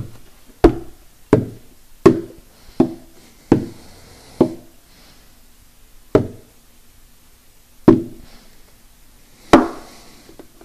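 Hand-struck percussion on the hollow wooden body of an acoustic guitar: single knocks, each with a short resonant ring. Six come about 0.7 s apart, then the beat slows to three lone knocks about 1.7 s apart.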